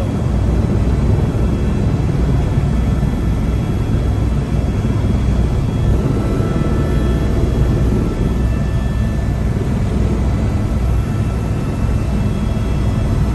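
Tour helicopter's engine and rotor running, heard from inside the cabin as a loud, steady low rumble.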